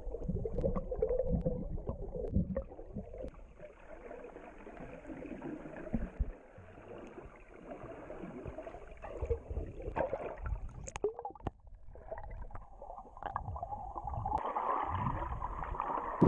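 Muffled sea water gurgling and sloshing, with occasional soft knocks, growing a little brighter near the end.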